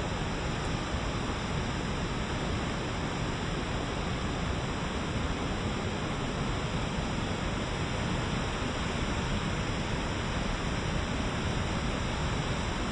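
Steady rushing of a waterfall and rapids in heavy flow, water pouring over boulders.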